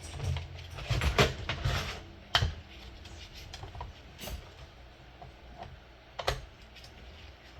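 Scattered light clicks and taps of a plastic alarm clock being handled and worked apart by hand, with sharper single clicks about two and a half seconds in and again near the end.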